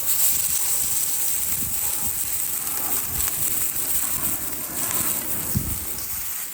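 Meat sizzling on a hot grill: a steady, loud hiss with small pops and crackles mixed in, starting and stopping abruptly.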